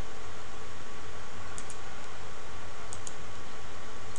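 Computer mouse clicking: two quick pairs of clicks about a second and a half apart, over a steady background hiss.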